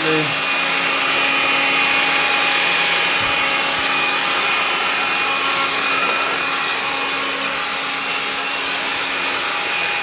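AEG CX7-1-30EB cordless stick vacuum running steadily with its motorised floor brush turning, pushed over a parquet floor to pick up dirt: a steady rush of air with a motor whine.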